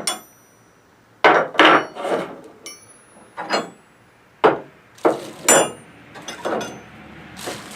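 Chrome-plated steel combination wrenches knocking and clinking against each other and the bench as they are handled, several separate knocks, a few ringing briefly with a high metallic tone.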